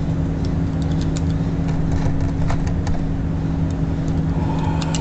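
Steady low mechanical hum with two held tones, with a few faint scattered clicks over it.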